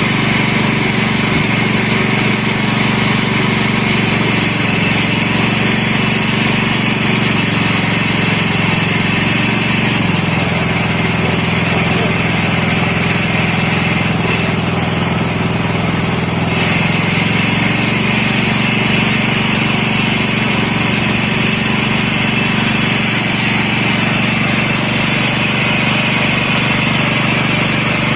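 Wet-fish grinding machine running steadily with a continuous motor drone. Its note shifts slightly about ten seconds in and again about seventeen seconds in.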